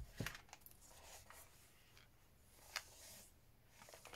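Faint rustling and handling of a handmade junk journal's card covers and paper pages as it is turned over in the hands. There are a few soft taps, the sharpest just after the start and another a little under three seconds in.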